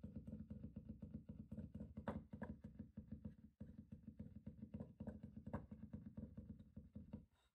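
Acrylic paint marker being pumped, its tip pressed down on paper again and again to start the gold paint flowing: a rapid run of faint light taps and clicks.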